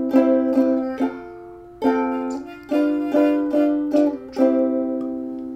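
Strummed chords on an acoustic string instrument, the instrumental break between sung lines of a children's sing-along. A few strums, a short pause, then a regular run of strummed chords, each ringing out before the next.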